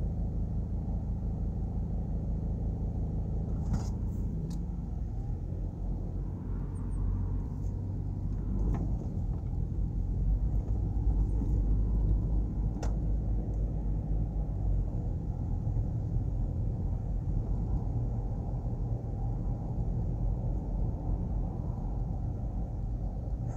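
Car engine idling, heard from inside the cabin, then the car pulls away and drives on as a steady low engine and road rumble that grows louder around ten seconds in. A few light knocks come through along the way.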